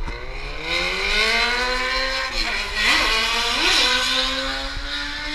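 Motorcycle engine revving loudly. Its pitch climbs over the first two seconds, dips and jumps in a few quick throttle blips about halfway through, then holds at steady high revs.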